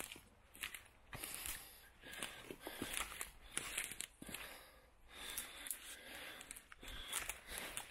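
Footsteps through wet mud and leaf litter, coming unevenly about once a second, with sharp crackles and rustles of twigs and leaves underfoot and brushing past.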